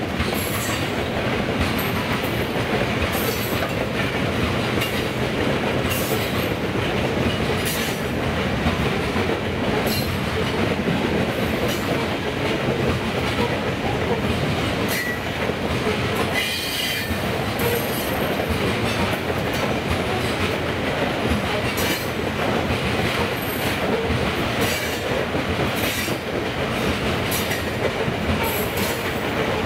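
Long train of coal gondola cars rolling steadily past: a continuous rumble and rattle of steel wheels on rail, with frequent short high-pitched squeaks and clicks from the wheels.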